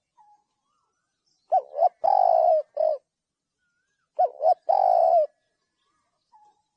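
Spotted dove cooing twice, each call two short coos followed by a longer held coo, the first ending with one more short coo.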